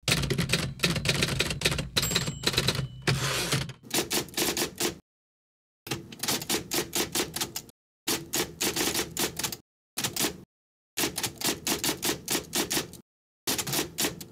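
Typewriter keys clacking in quick runs, several strikes a second, with a brief ringing tone about two seconds in; after the first few seconds the typing comes in short bursts separated by complete silence.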